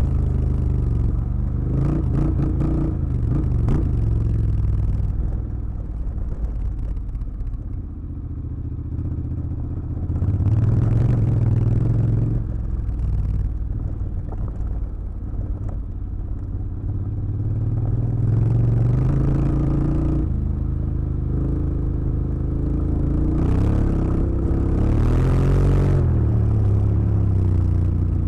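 Honda X-ADV 750 parallel-twin engine under way on a gravel track, its revs rising and falling several times as the throttle opens and closes. Over it, clattering and scraping from the loose stones under the tyres, heaviest in the first few seconds.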